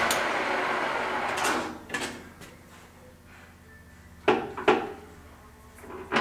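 The geared headstock of a Kent 13x40 gap lathe running its spindle steadily at 460 rpm, then winding down and falling quiet about a second and a half in. A few sharp metal clunks follow as the headstock speed-change levers are shifted.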